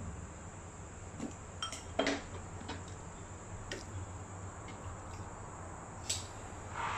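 A few scattered light clicks and knocks of kitchen utensils being handled, including metal kitchen shears set down on the counter; the loudest is about two seconds in. A low steady hum runs underneath.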